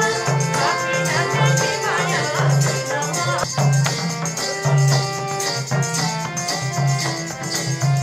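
Traditional Nepali folk dance music: a melody of held notes over a repeating low beat.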